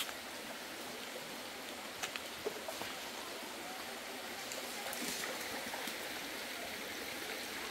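Steady rush of creek water, with a few sharp clicks of footsteps on loose river stones about two seconds in.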